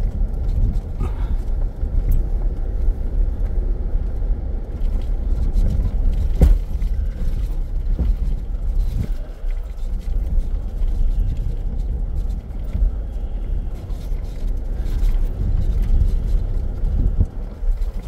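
Inside the cabin of a Jeep Grand Cherokee Trailhawk driving slowly over a rough dirt trail: a steady low rumble of engine and tyres, broken by occasional knocks from the bumpy ground, the sharpest about six seconds in.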